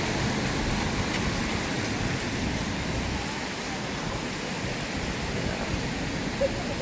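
Steady rushing outdoor noise with no distinct events, even across the whole range from low rumble to hiss.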